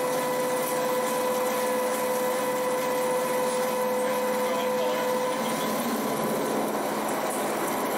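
Horizontal boring mill's spindle driving a milling cutter through a metal block under flood coolant: a steady whine over the hiss of cutting and spraying coolant. The lower of two steady tones stops a little over five seconds in while the cutting noise goes on.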